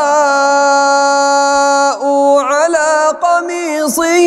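A man's voice reciting the Quran in melodic tajweed style, holding one long, steady note for about two seconds, then going on in a wavering, ornamented phrase after a short break.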